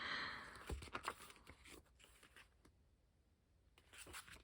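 Paper handling as the pages of a K-pop album photobook are turned: a soft rustle at the start, a few light taps and rustles about a second in, a quiet stretch, then more rustling near the end.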